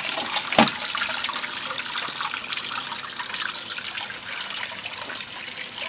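Kitchen waste water falling in a steady stream from a pipe into a plastic strainer on a grease trap drum. A brief thump about half a second in.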